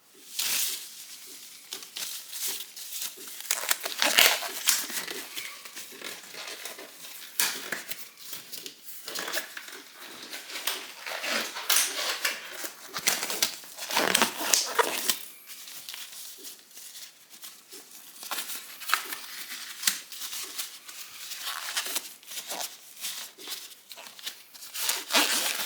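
Packaging handled close to the microphone: irregular crinkling and rustling with many small crackles and taps.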